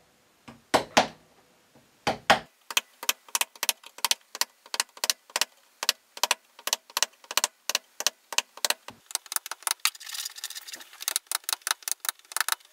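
Narrow woodworking chisel chopping into wood, walked along a mortise line to remove waste: a quick run of crisp clicks, about three a second, with scraping as chips are pared out near the end.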